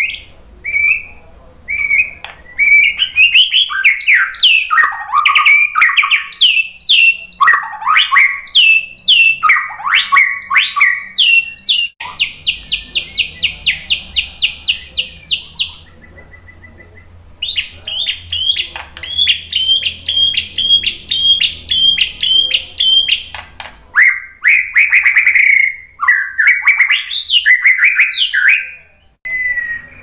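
Male white-rumped shama singing loudly: quick sliding whistled phrases, then a fast, even trill, a brief pause, a long run of repeated notes, and more varied phrases near the end.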